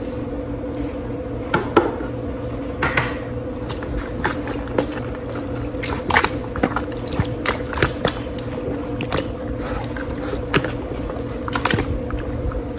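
Hands rubbing a soy sauce, fish sauce and rice wine marinade into a raw whole chicken: irregular wet squishing and small slaps, with a steady low hum underneath.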